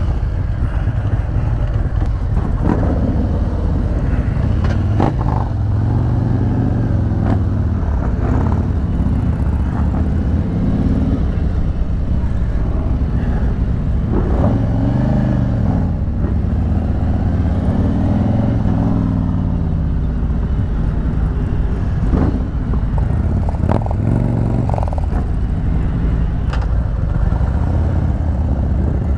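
Harley-Davidson Electra Glide's V-twin engine running under way, its note rising and falling several times as the bike accelerates and eases off.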